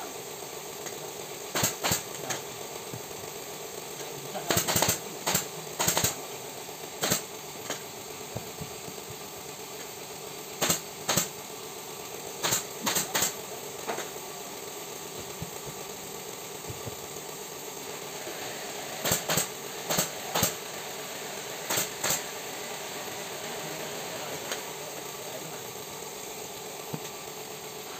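Pneumatic staple gun firing sharp shots in quick clusters of two to four, about twenty in all, fixing upholstery fabric onto a sofa seat cushion, over a steady mechanical hum.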